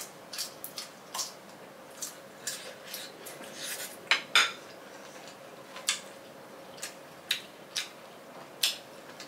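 Crunching and chewing of crisp green mango close to the microphone: a string of sharp, irregular crunches, the loudest two about four seconds in.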